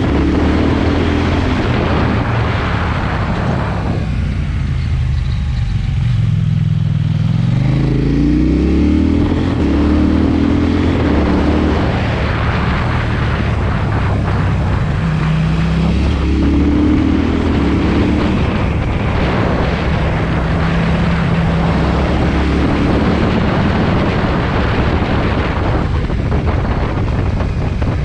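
KTM 790 Duke's parallel-twin engine through an SC-Project exhaust while riding, its pitch falling as the throttle is rolled off a few seconds in, then rising again as it accelerates, with more rises and lulls through the gears. Wind noise runs under it.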